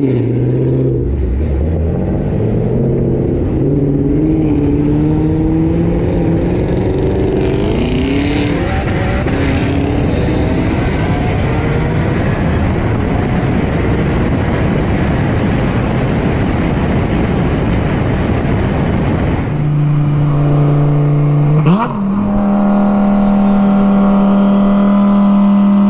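Single-turbo Nissan 370Z Nismo accelerating flat out in a highway roll race, heard from inside the car: the engine's pitch climbs and drops back at each gear change, then gives way to a loud roar of engine and wind at high speed. About twenty seconds in, the sound cuts to an engine holding a steady drone.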